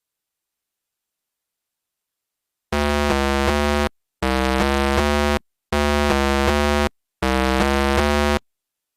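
Synthesizer music: after nearly three seconds of silence, a short three-chord electronic keyboard phrase plays four times in a row, with brief gaps between repeats.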